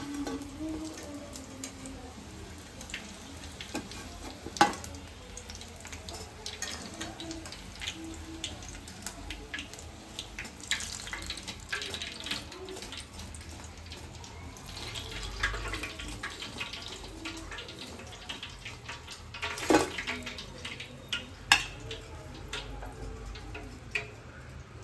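Battered green chillies (mirchi bajji) deep-frying in hot oil in a steel kadai: a steady sizzle with fine crackling. A few sharp metal clinks of the wire strainer and steel utensils, the loudest about five seconds in and about twenty seconds in.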